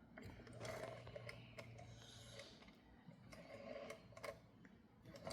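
Rotary telephone dial being turned and spinning back as a digit is dialled, giving a few faint mechanical clicks.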